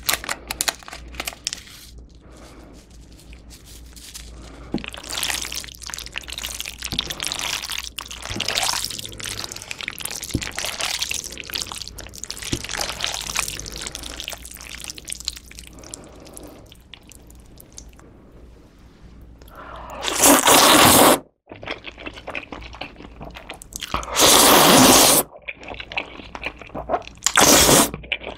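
Close-miked ASMR eating sounds of jajangmyeon: sauced noodles being mixed and lifted with chopsticks, wet sticky squelches and small clicks. In the second half come three loud noodle slurps, each about a second long.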